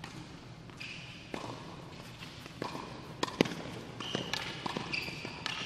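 Tennis rally on an indoor hard court: a serve followed by sharp racket-on-ball hits and ball bounces, the loudest about halfway through. Players' shoes squeak briefly on the court surface several times.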